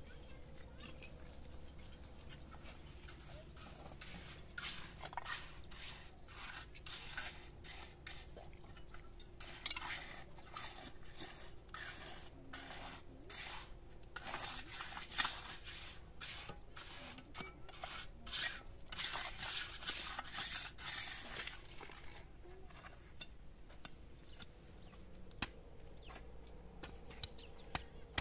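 A long run of irregular scraping or rubbing strokes, thickest in the middle, then dying down near the end.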